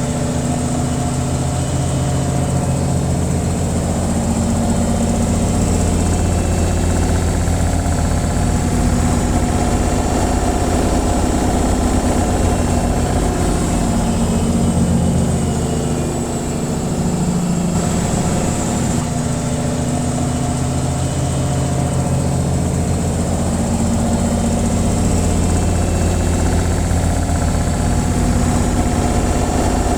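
Washing machine on its spin cycle: a steady low motor hum and drum rumble, with a brief slight dip in level about halfway through.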